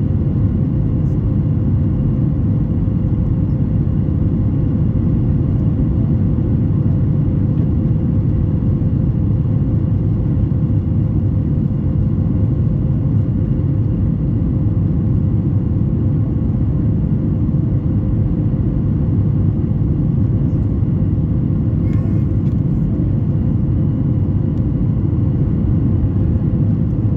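Cabin noise of a Boeing 737 MAX 8 climbing after takeoff, heard from a seat over the wing: the CFM LEAP-1B engines at climb power and the rushing airflow make a loud, steady deep rumble, with a steady hum above it.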